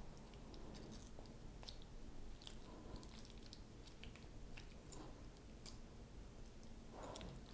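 Faint soft squishes and scattered light clicks of a spoon working a creamy chicken salad mixture onto lettuce on a plate.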